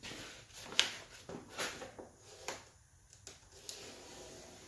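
Hand-working noises on small engine parts and their packaging: a few scattered sharp clicks and scrapes, the sharpest about a second in, with a soft steady scratching near the end.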